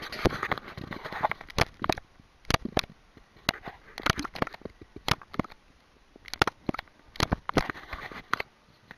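Handling noise from the camera: irregular sharp knocks and clicks, some in quick pairs, with rustling near the start and near the end as the camera is moved about against a surface covering the lens.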